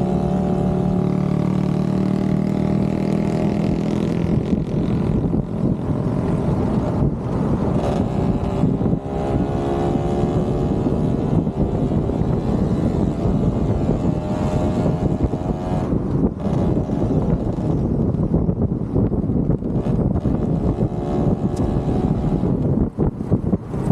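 Motorcycle engine running on the road, its pitch rising several times as it accelerates and dropping back between gears, over a continuous rush of wind and road noise.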